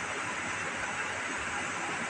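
Electric room fan running: a steady, even whooshing hiss.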